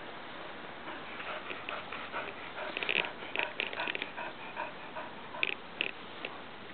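A young Border Collie mix dog making short, sharp sounds as it moves about on grass. The sounds are loudest around three to four seconds in and twice more near the end.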